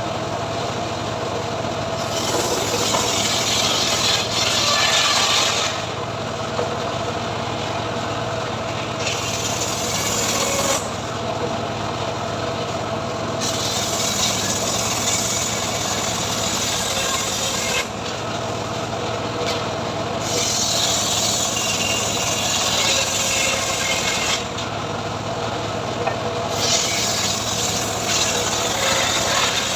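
A homemade chainsaw rig ripping a mahogany log lengthwise, its engine running steadily. The cutting noise swells and eases every few seconds.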